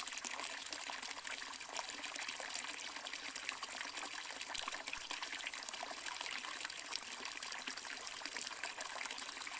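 Hot spring water trickling and splashing steadily, a continuous even rush of running water.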